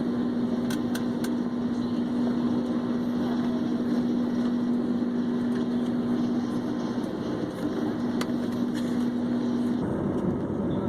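Steady airliner engine and airflow noise heard from inside the cabin: a dense rushing noise with a strong steady hum, which drops away and shifts in pitch shortly before the end.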